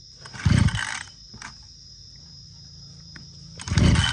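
Mitsubishi TL261 two-stroke brush cutter engine being pull-started on its power-assisted recoil starter: two short cranking pulls, one about half a second in and another near the end.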